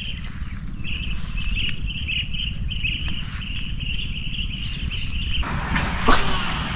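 Insects chirping: a steady, fast-pulsing high trill with a lower chirp repeating over it, above a low rumble. About five seconds in this cuts off abruptly and gives way to a rushing noise with one sharp click.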